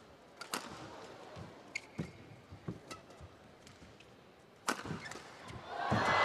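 Badminton rally: sharp cracks of rackets hitting the shuttlecock every second or two, the hardest hit about three-quarters of the way through, with a brief squeak in between. Near the end the arena crowd starts to cheer and clap as the rally finishes.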